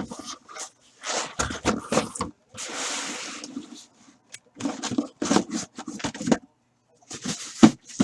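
Cardboard case of card boxes being opened and handled: a run of scrapes, rustles and knocks, with a longer rasp about three seconds in and a sharp knock near the end.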